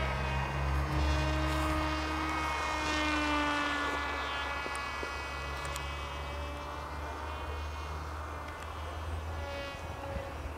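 Small RC flying wing's motor and propeller buzzing in flight, a pitched drone whose pitch slowly wavers up and down as the plane turns, growing slightly fainter toward the end. A steady low rumble runs underneath.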